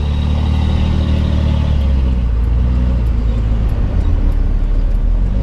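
Vehicle engine and road noise heard from inside the cabin while driving: a steady low hum with an even rush over it.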